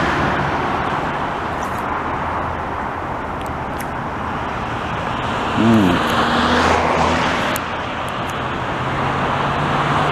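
Steady roar of highway traffic passing below, with wind on the microphone. About halfway through, a short pitched sound swells and falls away over the traffic.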